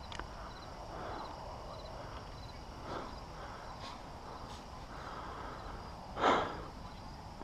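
Outdoor field ambience: insects chirping in a thin high repeating trill over a low steady rumble. One short loud rush of noise comes about six seconds in.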